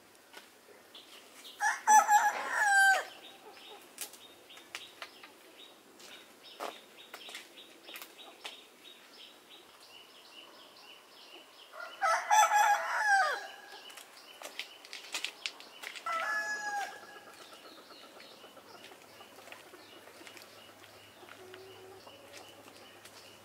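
A rooster crowing three times: two long crows about ten seconds apart, then a shorter one a few seconds later, each ending on a falling note.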